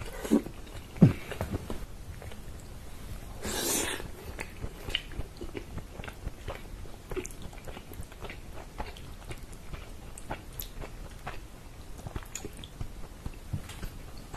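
Close-up chewing and wet mouth sounds of someone eating tender, fall-off-the-bone chicken in tomato sauce by hand, with many small clicks and smacks. Two dull thumps come in the first second, and a brief breathy rush comes about four seconds in.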